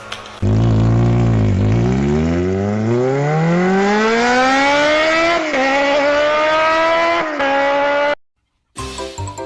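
An engine revving up: one loud pitched sound that rises steadily in pitch for about five seconds, levels off, then cuts off abruptly. Music starts shortly after.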